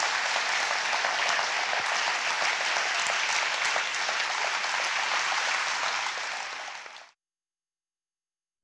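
Audience applauding, the applause fading away about seven seconds in.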